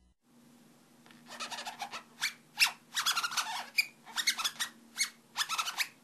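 Green-cheeked conure making a string of short chirps and squawks, starting about a second in.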